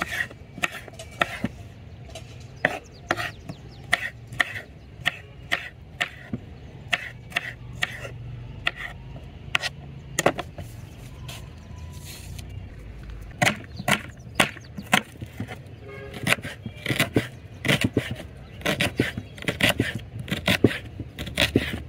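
Kitchen knife chopping tomatoes and then red onion on a wooden cutting board: a run of irregular knocks, a few a second, with a lull about halfway through and quicker chopping in the last few seconds.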